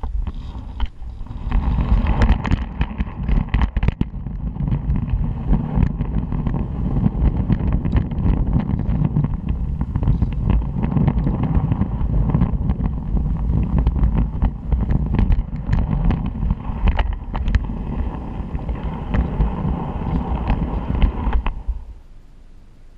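Garden-scale model train rolling along the track, heard from a wagon: a steady rumble with many sharp clicks of the wheels over rail joints. It stops suddenly about 22 seconds in as the train halts.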